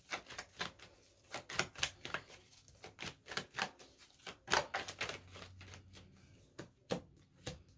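Tarot deck shuffled by hand: a run of quick, irregular card clicks.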